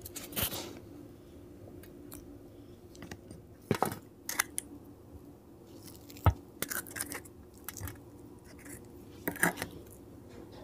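Crisp, hollow fried puri shells crackling and cracking as they are handled and poked open with the fingers, in a few short clusters of sharp crunches.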